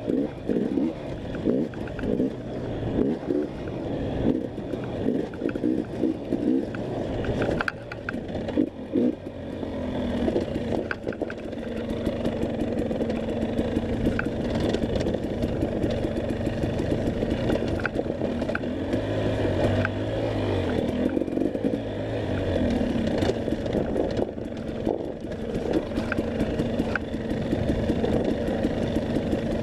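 Off-road motorcycle engine running hard on a dirt enduro test, the throttle opening and closing unevenly with knocks and rattles from the bike over the first ten seconds or so, then held at a steadier pitch.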